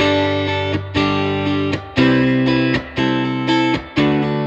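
Background music of guitar chords strummed about once a second, cutting in abruptly.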